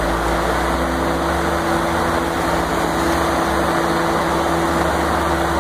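Steady rushing drone with a constant hum from the blower fan of an inflatable tube man, mixed with the engines of Mazda Miata roadsters driving slowly past.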